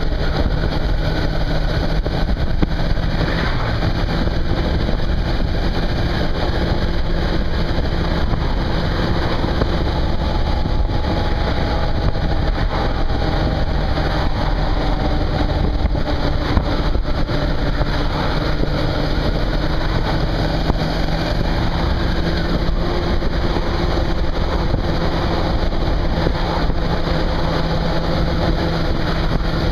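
Suzuki V-Strom 650's V-twin engine running at a steady cruise, mixed with wind rushing over the microphone.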